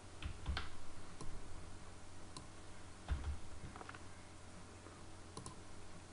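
Scattered, irregular clicks from a computer mouse and keyboard, about eight in all, over a low steady hum.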